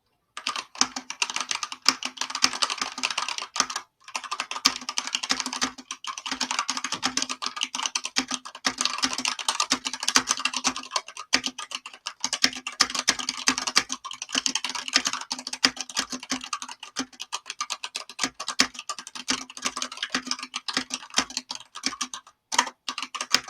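Fast, continuous typing on a GK61 mechanical keyboard: a dense stream of key clicks, with a short pause about four seconds in and a few brief pauses near the end.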